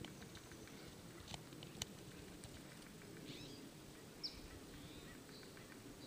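Faint bird calls: a few curved high notes about three seconds in and a short sharp chip a second later. A couple of sharp clicks or taps come in the first two seconds, over a low steady rumble.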